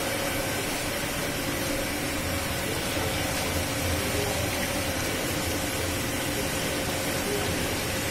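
Steady machinery drone with a constant hum, from the aeration blowers and pumps of a running recirculating aquaculture system. Water pours from a wide outlet pipe into a fish tank under it.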